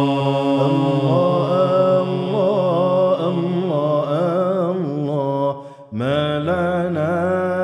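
Men's voices chanting an Arabic devotional song (nasheed) together without instruments, drawing out a long, ornamented sung phrase over a steady lower note. The phrase fades about five and a half seconds in, and a new line begins just after.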